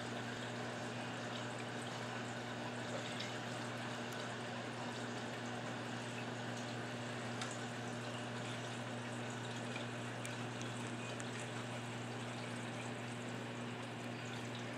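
Reef aquarium's water circulation: a steady splashing trickle of moving water over a low, even pump hum.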